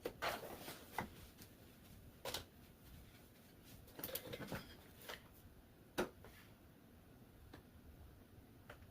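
Faint, irregular clicks and short rustles of something being handled, about a dozen scattered taps with the sharpest a little after the start and around six seconds in; no notes sound.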